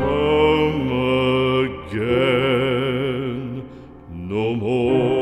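Slow background music of long held, wavering notes in three phrases, with short dips between them about two seconds in and near the end.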